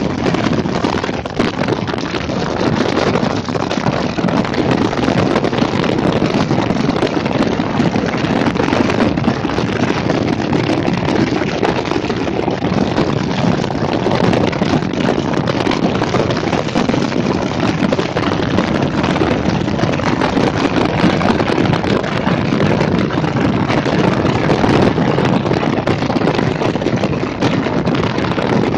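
Loud, steady wind noise buffeting the microphone, as when travelling at speed in the open air.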